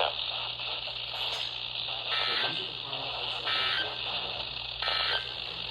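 NOAA Weather Radio Emergency Alert System end-of-message data bursts: three short digital bursts a little over a second apart, over steady receiver hiss, signalling the end of the severe thunderstorm warning broadcast.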